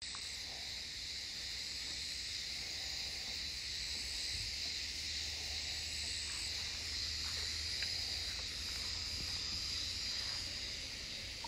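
Steady high-pitched chorus of insects buzzing without a break.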